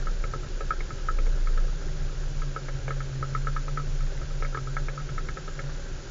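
4x4 driving slowly over a rutted, muddy track: a low engine rumble, with a steady drone from about two seconds in to near the end, and fast, irregular rattling clicks as the vehicle bounces over the ruts.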